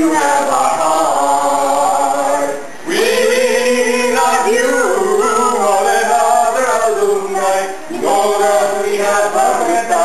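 A small mixed group of men and a woman singing a song together in rehearsal, their voices holding long notes, with short breaks about three seconds and eight seconds in.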